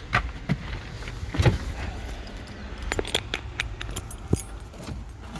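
Keys jangling, with a scattering of sharp clicks and light knocks, thickest about three to four seconds in.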